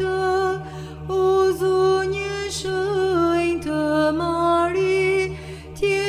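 Solo Byzantine chant sung in Albanian, one voice drawing out long melismatic notes over a steady low drone (ison).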